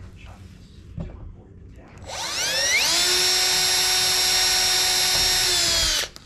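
18-volt cordless drill drilling a hole: a few light handling clicks, then about two seconds in the motor spins up with a rising whine, runs at a steady high pitch for about three seconds and stops suddenly.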